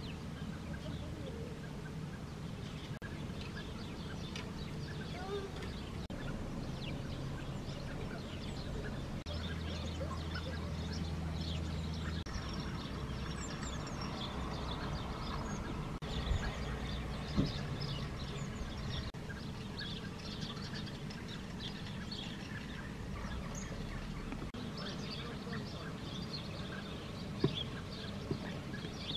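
Many small birds chirping and twittering throughout, over a steady low hum.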